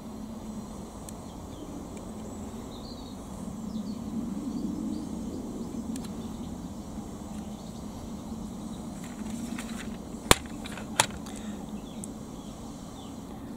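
Steady low background drone, with two sharp clicks about ten and eleven seconds in as small hard parts of a toy excavator's track frame are handled.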